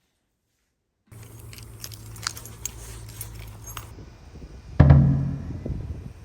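Keys jingling and light clicks over a low hum, then a door shutting with one heavy thump just before five seconds in.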